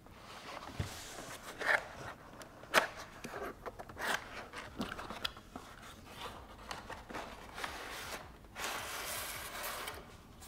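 Cardboard knife box being handled and opened: scattered taps, scrapes and rustles of cardboard, then a steady rustle for about a second and a half near the end as the inner cardboard sleeve slides out of the outer box.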